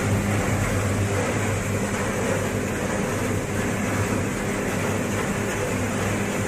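Gas-fired automatic coffee roasting machine running: a steady low hum with an even rushing noise over it.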